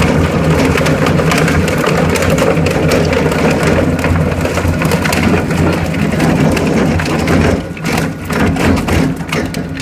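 Single-shaft plastic shredder running: a steady motor hum under a dense crackle and clatter of plastic being chewed by the toothed rotor. About three-quarters of the way through, the crackle thins to scattered cracks and the sound gets quieter.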